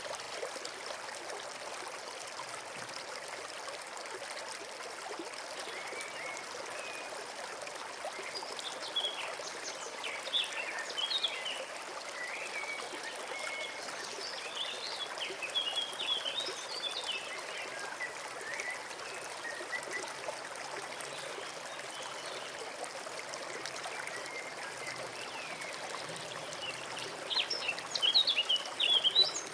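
Small forest stream trickling and flowing steadily. A songbird sings quick, varied phrases over it through the middle, and again, louder, near the end.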